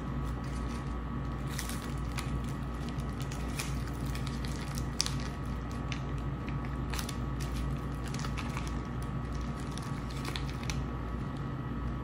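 A knife cutting and scraping a soft block of queso fresco as a plastic bag crinkles, heard as scattered light clicks and crackles over a steady low hum.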